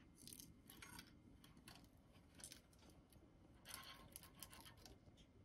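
Faint irregular rattling and scraping from a Kalok KL-320 MFM hard drive as it is tilted by hand: a broken-off read/write head lies loose inside the sealed casing. The rattles come in two small clusters, about half a second in and again near four seconds.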